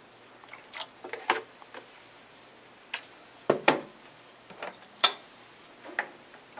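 About half a dozen separate kitchenware knocks and clicks, the loudest pair just past the middle: utensils and a spoon handled against an enamelled metal pot of milk as stirring begins.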